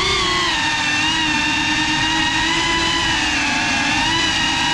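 GEPRC Cinelog 35 cinewhoop's brushless motors and ducted propellers whining in flight, heard from the onboard camera. The pitch rises at the start, then holds nearly steady with small dips and swells.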